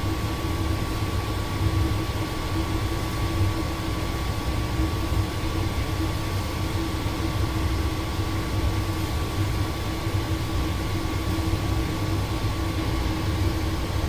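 Steady mechanical hum of running machinery: a low rumble with a constant mid-pitched drone and a fainter higher tone, unchanging throughout.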